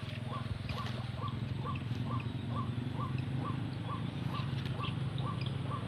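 Repeated calling of a white-breasted waterhen (ruak-ruak): a short note about twice a second over a low pulsing drone.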